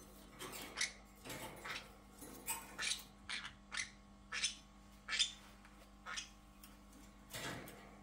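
Pyrrhura conures giving short, sharp chirps, about a dozen spread unevenly, one or two a second, over a faint steady hum.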